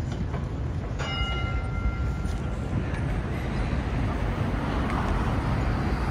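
Street traffic at a city intersection: a steady rumble of passing vehicles and a tram going by, with a high squeal lasting about two seconds, starting about a second in.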